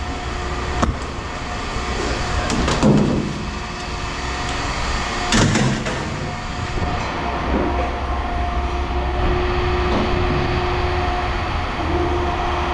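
A vehicle engine running steadily with a low hum, with a few knocks and scrapes about 3 and 5.5 seconds in.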